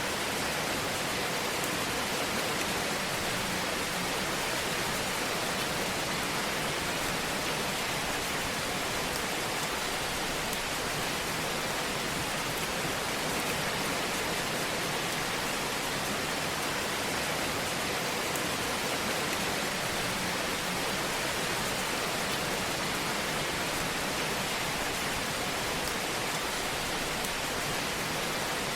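Fireplace fire giving a steady, even hiss of fine crackle, with no loud pops standing out.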